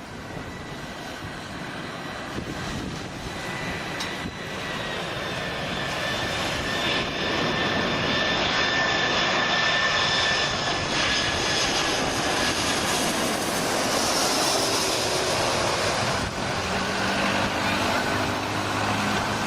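Jet airliner engines growing steadily louder over several seconds, then holding a loud rumble with a high whine that slowly drops in pitch.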